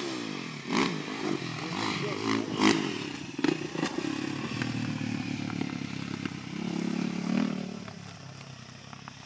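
Dirt bike engine heard from a distance, revving up and down as the rider works down a steep dirt track, with a few sharp knocks, and fading near the end.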